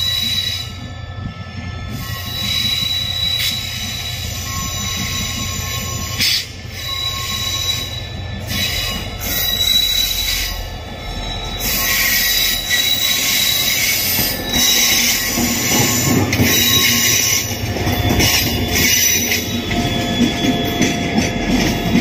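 SRT diesel-electric locomotive 5202 running slowly past with a train of LPG tank wagons: a low engine drone and wheels rolling on the rails, with a steady high-pitched wheel squeal through much of it. The rolling noise grows louder about halfway through as the tank wagons pass close by.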